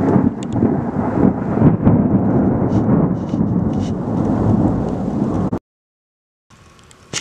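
Loud rolling thunder rumbling continuously with rain, cut off abruptly about five and a half seconds in. After a second of silence, faint rain noise resumes, with one brief sharp tick near the end.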